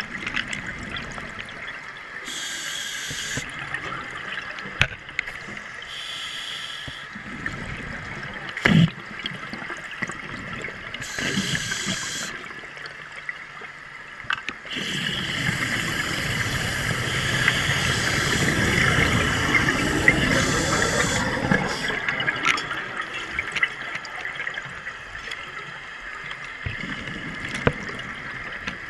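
Scuba diver breathing through a regulator underwater: exhaled bubbles rush past the camera in bursts every few seconds, with one long, louder stretch of bubbling midway, over a steady underwater hiss and a few clicks.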